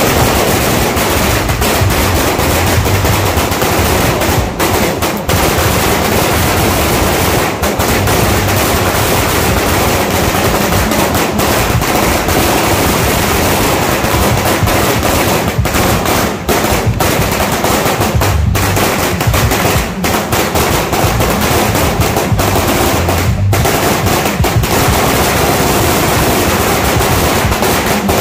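A 5000-round Sawa firecracker string going off: a continuous, rapid crackle of bangs that starts suddenly.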